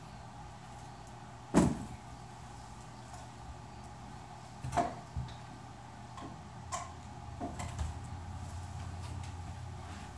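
Handling sounds from setting up a guitar amplifier head and speaker cabinet: one sharp knock about one and a half seconds in, then a scattering of light clicks and knocks, over a low steady hum.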